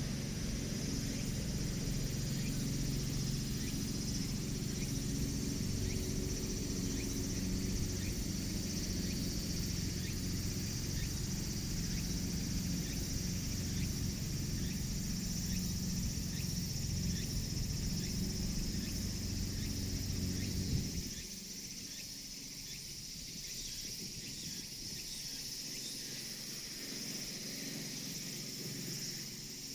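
Insects chirping steadily in a high, even band over a low mechanical hum. The hum cuts off suddenly about two-thirds of the way through, leaving the insects alone.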